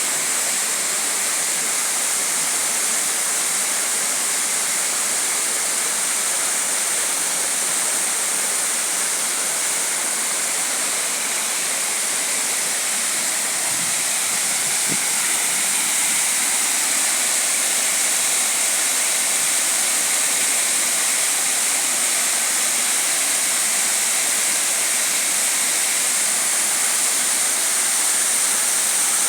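Waterfall of about 30 m pouring steadily, an even rush of falling water hitting hard below.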